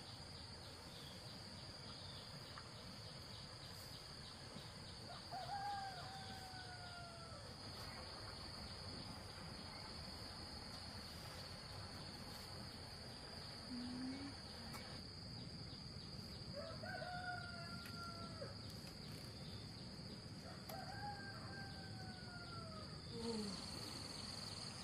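A rooster crowing faintly three times, each crow a drawn-out call that drops in pitch at the end, over a steady high insect drone.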